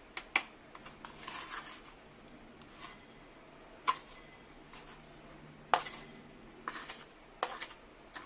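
Light kitchen handling sounds: a scattering of sharp clicks and taps of a utensil against a bowl, with a short scraping rustle about a second in, as potato balls are coated in batter and rusk crumbs.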